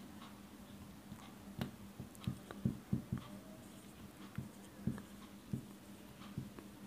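Marker pen writing and drawing on a whiteboard: a quiet run of irregular soft taps and scrapes of the tip against the board.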